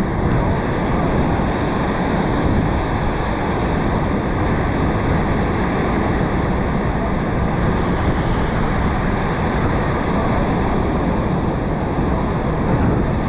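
Steady rushing roar of wind and falling water below Niagara Falls, buffeting the microphone aboard the tour boat, with a brief hiss about eight seconds in.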